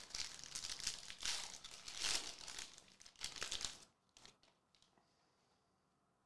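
Foil wrapper of a Donruss Soccer hobby card pack crinkling as it is torn open, a dense rustle lasting about four seconds. A few faint clicks follow before it goes quiet.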